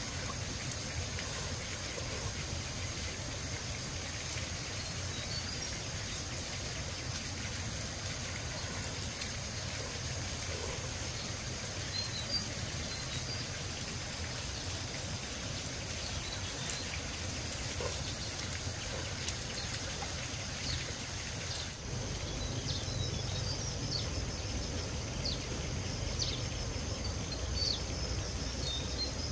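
Countryside ambience: a steady insect drone with scattered small bird chirps over a low rumble that grows louder near the end, with a few light clicks.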